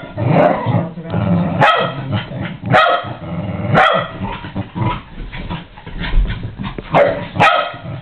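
Jack Russell terrier barking in play, with short sharp barks about once a second and a lull in the middle before two quick barks near the end.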